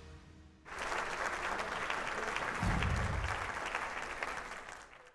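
Crowd applause, starting suddenly about a second in as a dense patter of many hands clapping, with a low swell about three seconds in, then fading and cutting off near the end.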